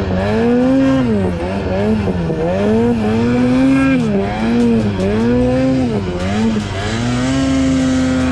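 Ski-Doo snowmobile engine revving up and down over and over under load in deep powder, its pitch rising and falling about once a second, then held high near the end.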